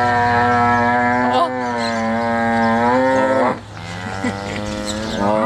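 A cow mooing: one long, drawn-out moo lasting about three and a half seconds that drops away at the end, then a second moo beginning just before the end.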